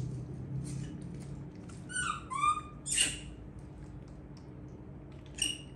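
Baby monkey giving short high-pitched squeaky calls: two close together about two seconds in, a brief squeak just after, and another near the end.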